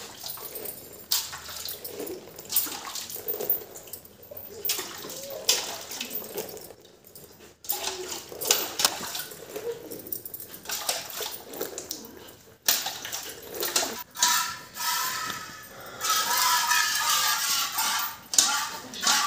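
Hand-milking into a steel bucket: repeated squirts of milk hissing and splashing into the pail, stroke after stroke. Music comes in over the last few seconds.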